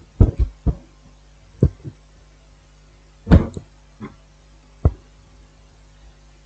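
A scattered series of short knocks and taps, about eight in all with the loudest about three and a third seconds in, from hands and multimeter probes being worked against an opened phone's battery on a bench.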